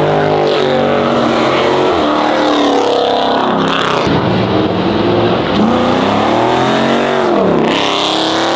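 Car engine revving hard and very loud, its pitch climbing and dropping several times.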